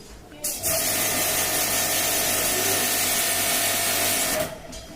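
Portable high-pressure jet pump for AC servicing running with a steady whine and hiss; it switches on about half a second in and stops shortly before the end.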